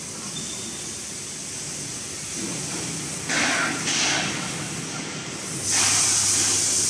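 Steady hiss with two louder bursts of hissing, a short one about three seconds in and a longer one from about six seconds in.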